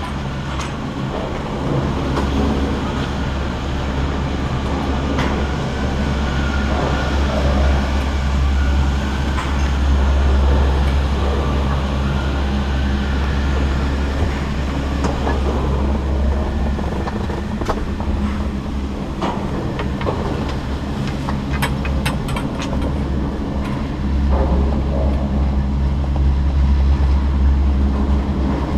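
Doppelmayr detachable chairlift terminal machinery running: a steady low hum with scattered clicks and rattles as the chair moves through the station.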